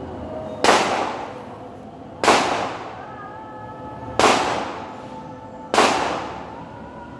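Four shots from a CZ SP-01 9mm pistol, spaced about one and a half to two seconds apart. Each is a sharp crack followed by a short fading echo.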